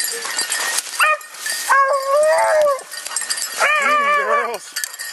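Pack of beagles baying while running a rabbit: short yips about a second in, then two long, wavering bawls.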